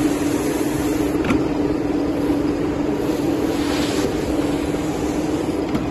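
Plywood veneer glue spreader running: its rollers and drive motor give a steady hum with one low steady tone. A couple of faint clicks come through, about a second in and near the end.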